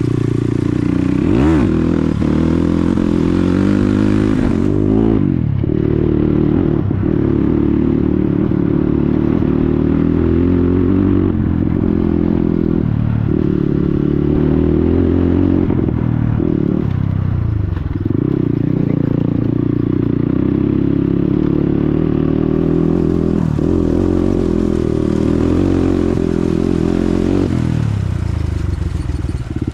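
Dirt bike's single engine running through a loud exhaust while riding. It revs up sharply about a second and a half in and again around five seconds, and the pitch dips briefly several times as the throttle is rolled off.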